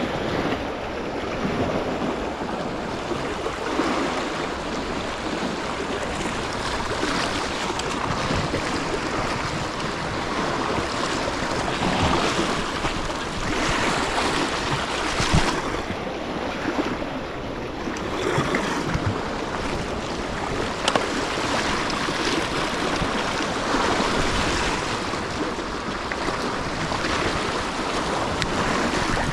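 Sea waves washing against a rocky shore, rising and falling in several louder surges, with wind noise on the microphone.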